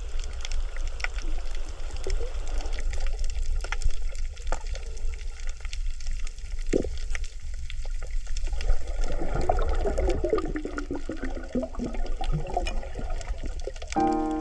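Underwater coral-reef sound heard while snorkel-diving: a dense, constant crackle of tiny clicks (the "michi-michi" sound the uploader says is reportedly the coral breathing) over a low rumble of moving water. A bubbly gurgle falling in pitch comes around two-thirds of the way through.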